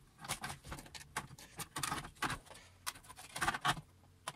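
Irregular small plastic clicks and taps, a dozen or so, as the snap-in plastic spacer pins holding a circuit board are pinched and pushed through and the board is handled.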